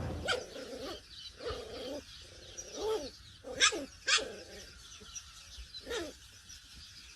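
A dog giving a series of short, high yips, each rising then falling in pitch, the two loudest close together a little past the middle.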